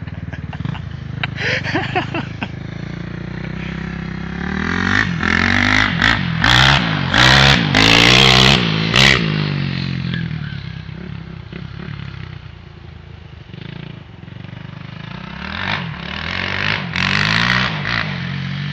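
Motorcycle engine running while being ridden. It revs up and gets loud from about five to nine seconds in, eases off and quietens, then picks up again near the end.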